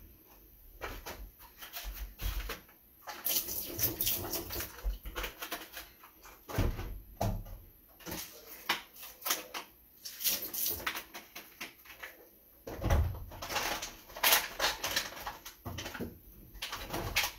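Irregular clatter and knocks of kitchen cleanup: dishes, utensils and other kitchen items being handled and set down, busiest about ten seconds in and again a few seconds later.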